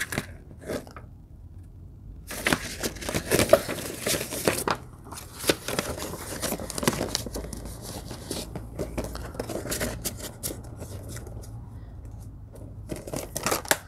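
Rustling, scraping and clicking as a plastic Blu-ray case and its paper cover insert are handled. It is busiest from about two to five seconds in, with a few clicks near the end.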